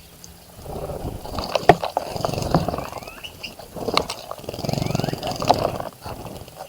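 Small birds bathing in a bird bath: bouts of splashing and wing fluttering with sharp ticks, in two spells, with a few short bird chirps between them.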